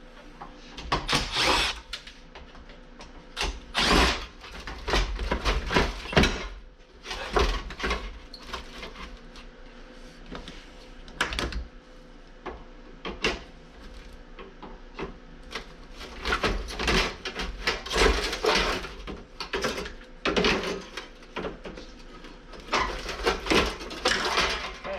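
Power drill-driver running in short bursts to back out screws from an air conditioner's sheet-metal casing, between irregular knocks and clanks of metal parts being handled.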